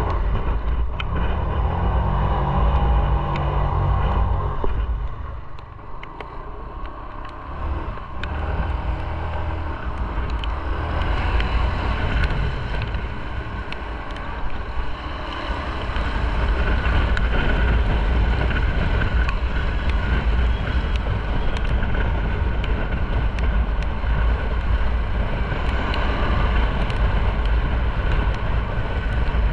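Motorcycle engine running, with wind noise on the microphone and tyre hiss on a wet road. The sound drops quieter about five seconds in and grows louder again past the midpoint.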